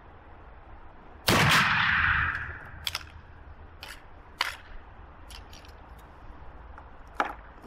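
A single shot from a Werndl M1867/77 single-shot breech-loading rifle firing a black-powder 11.15x58R cartridge, loud and sharp, with a long echoing tail. It is followed by a series of short metallic clicks as the rifle's breech is worked.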